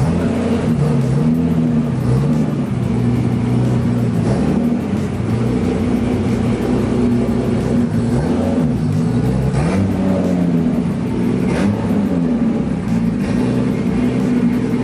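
Nissan R32 Skyline's RB26 straight-six running at low speed, its pitch dipping and rising several times with light throttle as the car creeps forward.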